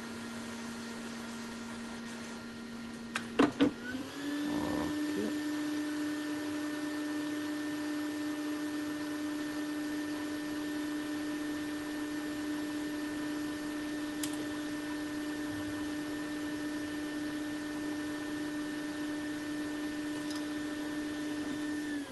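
Hot air rework station blower running with a steady whine. A few sharp clicks about three seconds in, then the fan speeds up and its pitch steps up and holds, dropping back down at the very end.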